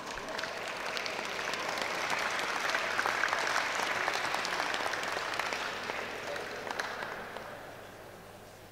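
Audience applauding, swelling over the first two seconds and dying away over the last two.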